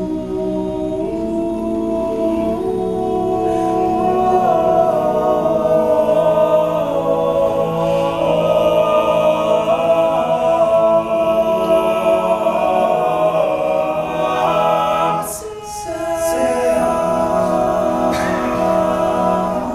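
All-male a cappella group singing wordless backing chords in close harmony, the voices holding long sustained chords. The chords break off briefly about fifteen seconds in, then come back in.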